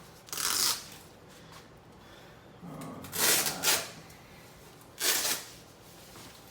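Packaging rustling and rubbing in three short bursts as the AV receiver is unwrapped and handled.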